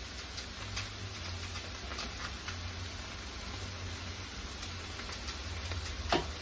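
Cabbage frying in bacon fat in a large pot, a soft steady sizzle, with a few crisp snaps as pieces of cabbage are broken off by hand over the pot, the sharpest one near the end. A low steady hum runs underneath.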